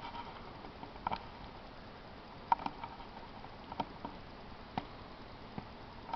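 Scattered light clicks and knocks, about seven at uneven spacing, the sharpest about two and a half seconds in. They come from copper tubing and hand tools being handled while the tube is measured for cutting.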